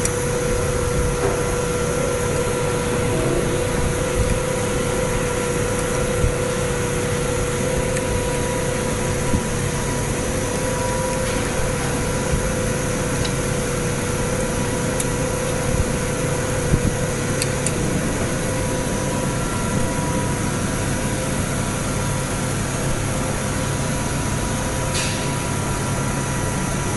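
Steady hum of factory machinery, a constant drone with a held whine, with a few faint clicks of metal parts and an Allen key being handled.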